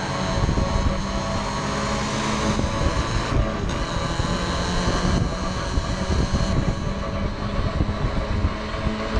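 Spec Miata race car's four-cylinder engine running hard on track, a steady drone whose pitch shifts a few times.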